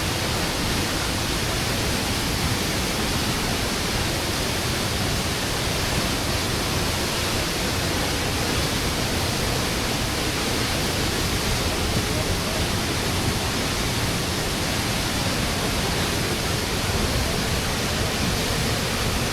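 Waterfall rushing steadily: a dense, unbroken wash of falling water, deep and hissy at once.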